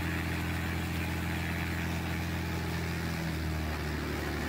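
Light aircraft piston engine and propeller running steadily near full throttle in a ground run-up, smooth and even with no sign of trouble. A little over three seconds in, the pitch drops slightly as power eases back.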